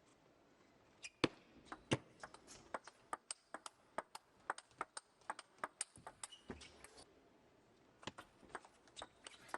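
Table tennis rally: the ball clicking sharply off the bats and the table several times a second, starting about a second in, with a brief lull near the seventh second before more hits.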